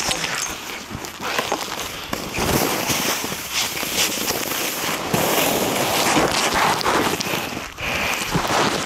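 Crackling, rustling handling noise: a ski jacket's fabric rubbing against the phone's microphone.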